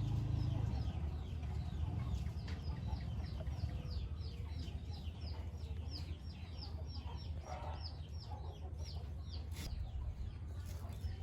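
Chicks peeping: a quick run of short, high, falling peeps, about three or four a second, that dies away near the end, over a steady low rumble.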